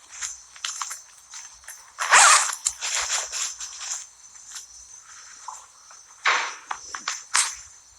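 Irregular rustling and knocking as things are handled and packed into bags, loudest about two seconds in and again near six seconds. Crickets chirp steadily underneath.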